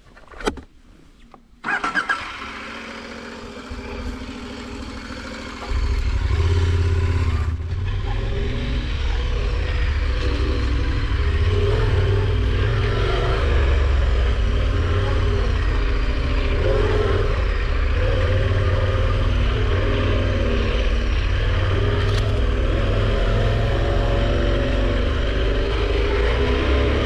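KTM 1190 Adventure R's 1195 cc V-twin starting with a sudden burst about two seconds in and idling briefly. From about six seconds in it runs louder and steadily as the bike rides off.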